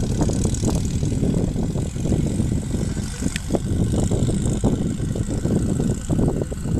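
Wind buffeting the camera's microphone: a loud, irregular, gusting rush with no steady tone.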